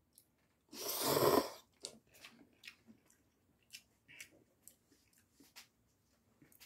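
A person slurping a mouthful of instant cup noodles about a second in, then chewing them with scattered small wet mouth clicks.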